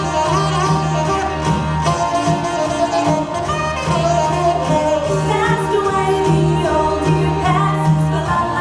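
Recorded music: a song with singing over instruments and a steady pulsing bass.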